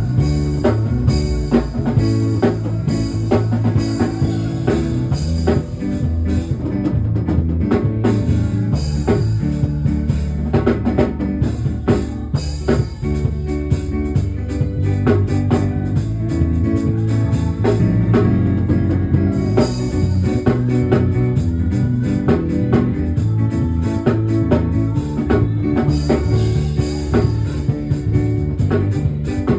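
Band music: drum kit keeping a steady beat over bass and guitar.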